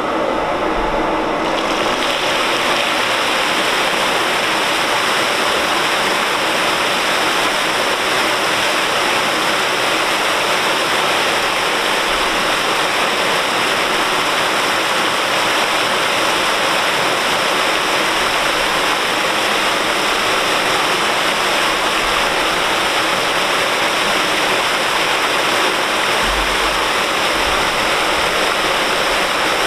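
Water pouring in a wide curtain of streams from a wooden flume bridge into the river below, a loud steady splashing rush. It comes on suddenly at the start as the flow begins.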